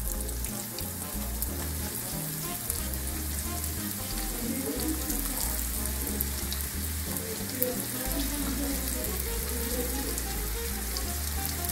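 Sliced button mushrooms sizzling steadily as they fry in hot melted butter in a frying pan. Scattered light clicks come as more slices are dropped in by hand.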